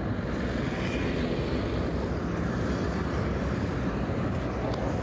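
Steady road-traffic noise from cars, a truck and motorbikes passing on the road.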